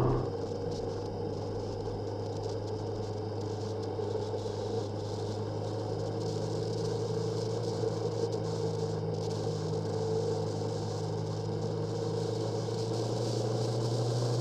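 Motorcycle engine running at a steady note while riding, with rushing wind and road noise, slowly growing louder toward the end.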